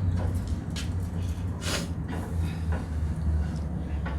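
Cooking utensils scraping and clicking against a barbecue grill a few times, over a steady low rumble.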